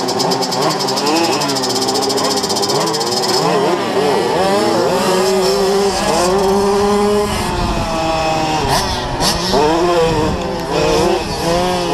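Small single-cylinder two-stroke dirt bike engines, the 2007 KTM 65 SX and other minibikes close by, revving up and down through throttle changes and gear shifts while racing, with several engine pitches rising and falling over one another. A few sharp knocks come about three-quarters of the way through.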